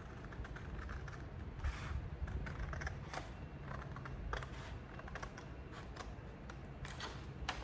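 Scissors snipping through a sheet of colored paper in short successive cuts: an irregular series of crisp clicks.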